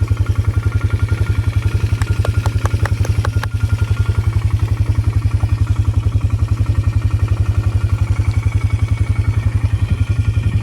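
Four-wheeler (ATV) engine idling with an even, rapid low throb. A few light clicks come about two to three and a half seconds in.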